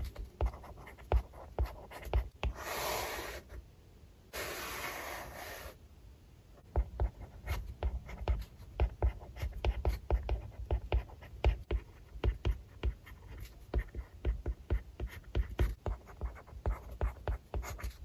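Hard stylus tip tapping and scratching on a tablet's glass screen while writing Chinese characters: a quick run of small clicks from the pen strokes. Two longer hissing sounds come about three and five seconds in.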